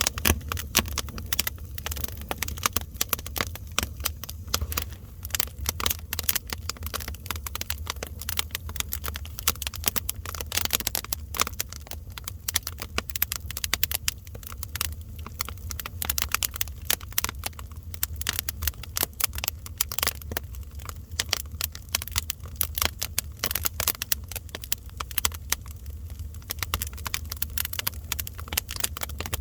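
Fire crackling: dense, irregular pops and snaps, some sharper and louder than others, over a steady low rumble.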